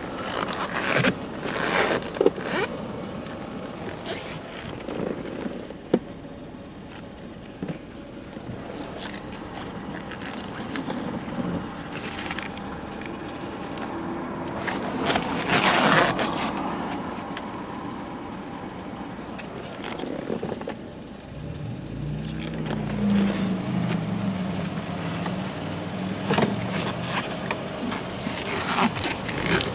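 The Dodge Grand Caravan's 3.8 L V6 running during a transmission relearn procedure, with scattered clicks and scrapes. About two-thirds of the way in, the engine note rises and wavers as the engine is brought up in speed.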